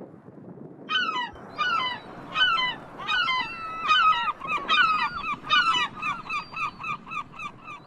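Gull giving its long call: a few drawn-out notes falling in pitch, then a quickening run of shorter notes.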